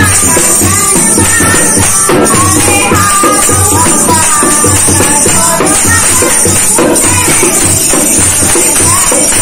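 A woman singing a Garhwali devotional bhajan to a dholak hand drum, played in a steady repeating rhythm, with hand clapping and a continuous metallic jingle like a tambourine's.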